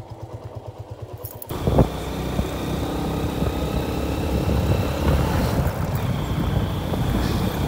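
Motorcycle engine idling with an even pulse. About a second and a half in, it gives way abruptly to loud, steady engine and wind noise as the motorcycle rides.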